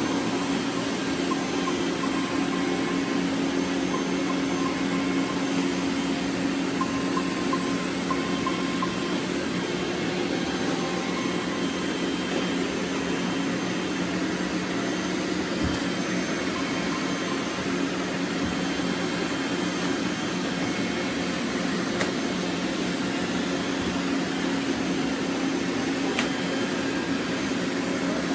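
Robot vacuum cleaners running: a steady whirring hum of motors and brushes that holds at an even level throughout.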